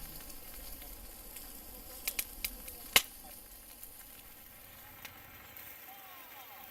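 Campfire burning with a low steady hiss and a few sharp crackling pops about two to three seconds in, the last one the loudest.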